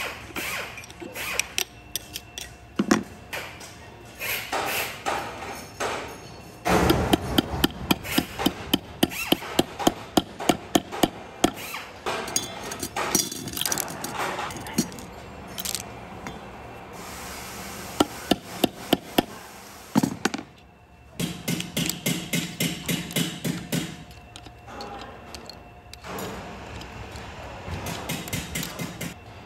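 Steel parts of a two-stage cycloidal pinwheel reducer being fitted by hand into its oiled housing: clinks of rollers, pins and a ball bearing going into place, and runs of quick, evenly spaced metal taps, several a second, seating them. A few single louder strikes fall about two-thirds of the way through.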